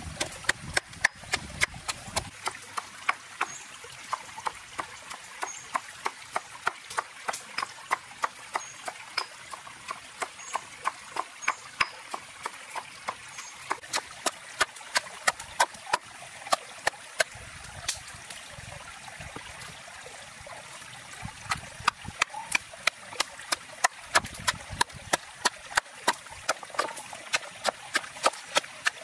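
Wooden pestle pounding red chillies in a stone mortar: steady sharp knocks about two to three a second as the chillies are crushed into a coarse paste, the strokes weaker for a few seconds in the middle.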